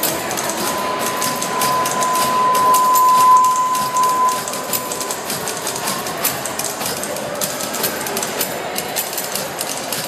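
Several typewriters typed fast together as a percussion ensemble: a dense stream of key clacks. A steady high tone rises under them and fades out about five seconds in.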